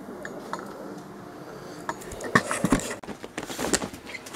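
A grow tent being opened by hand: after a quiet start, its fabric rustles and scrapes with a quick run of clicks from about two seconds in.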